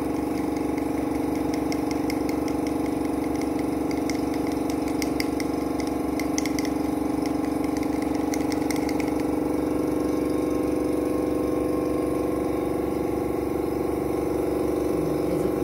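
A steady mechanical hum holds one constant pitch throughout. Over it, from about two to nine seconds in, comes light rapid scratching and ticking as gold leaf is rubbed through the mesh of a bamboo sprinkling tube.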